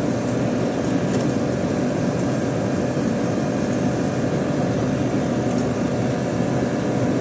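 BlueStar ductable air conditioner's condensing unit running steadily, its compressor and condenser fan giving a constant hum.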